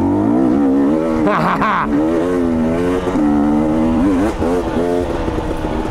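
2022 KTM 250 XC two-stroke dirt bike engine chugging along at low revs, its pitch rising and falling with the throttle. There is a brief higher rev about a second and a half in.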